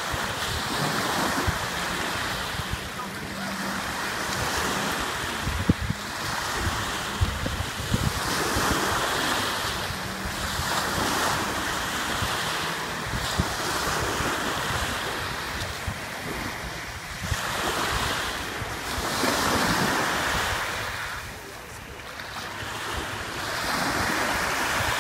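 Small waves breaking and washing up onto a sandy shore, the surf swelling and fading every few seconds. Wind buffets the microphone.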